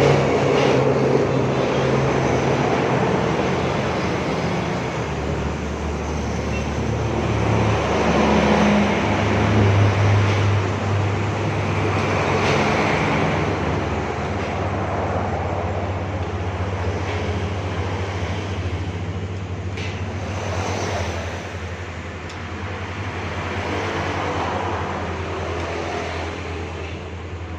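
Continuous motor-vehicle noise: a steady low engine hum with road noise over it.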